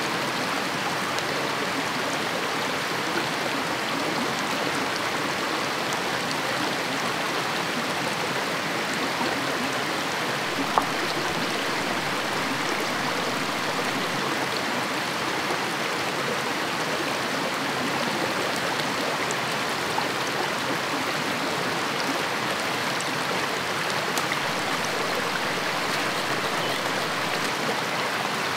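Steady rush of running water, with a few faint ticks and one sharp click about eleven seconds in.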